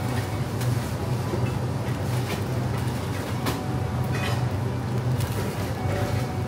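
Convenience-store ambience: a steady low hum with scattered light clicks and rustles.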